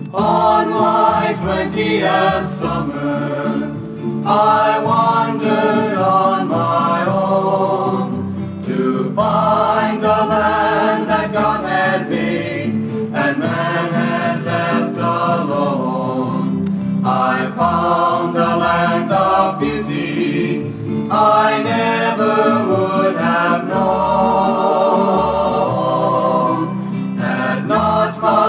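A mixed folk vocal group singing a 1960s folk song in harmony over a steady accompaniment. The song runs in phrases of about four seconds, each followed by a short dip.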